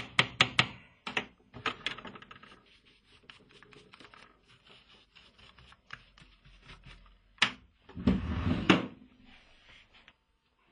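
Quick strokes of a hand file on a small metal jewellery piece held against a wooden bench pin, about five strokes a second at first, then lighter scattered ticks and scrapes. A sharp click about seven and a half seconds in and a louder, heavier scraping burst a second later.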